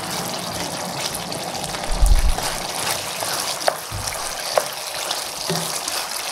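Wooden spoon stirring braised beef through thick, simmering soy-based sauce in a nonstick pan: a steady wet, sloshing sound. A dull thump about two seconds in, and two brief squeaks a little later.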